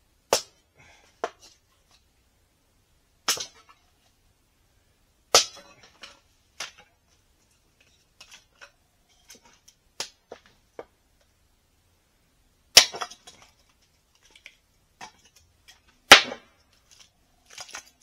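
Dry wood cracking and snapping: about half a dozen loud, sharp cracks at irregular intervals, with fainter ticks between them.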